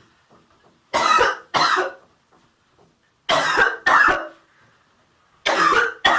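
A person deliberately fake-coughing: loud coughs in three pairs, about two seconds apart.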